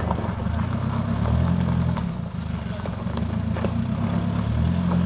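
Toyota Hilux 4WD engine pulling at low speed under load as the truck crawls up a rutted dirt hill. Its low note shifts up and down with the throttle, stepping up near the end.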